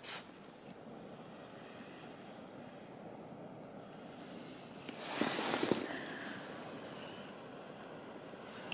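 Small camping stove burning under a pot of snow, a steady rushing hiss. About five seconds in comes a louder burst of rustling with a few knocks.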